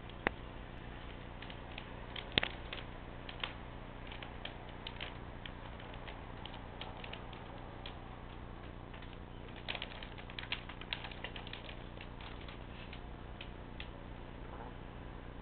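Scattered small clicks and scrapes of a cat moving about among quilts on a closet shelf, bunched about two seconds in and again around ten to eleven seconds in, over a steady low hum.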